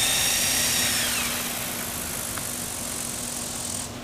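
Small model helicopter's engine and rotor winding down after landing: a steady whine that starts to fall in pitch about a second in while the overall sound gets quieter, with the high hiss dropping away sharply near the end.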